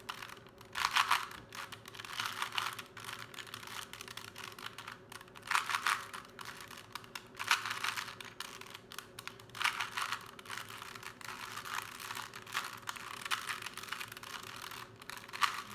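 A 3x3 Rubik's Cube being scrambled by hand: quick plastic clicking and clacking as its layers are turned, with denser bursts every second or two.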